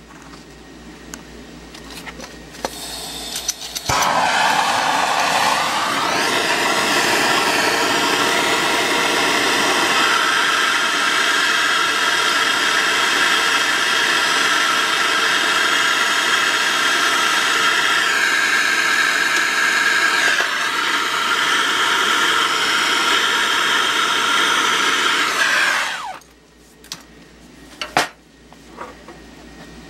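Hose-fed propane soldering torch burning with a steady hiss as it heats a copper pipe fitting for soldering. The gas hiss builds and the flame lights with a jump in level about four seconds in. It is shut off abruptly a few seconds before the end.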